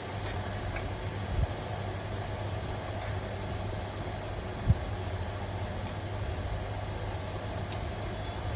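A steady low mechanical hum under a constant noise, with a couple of soft low thumps.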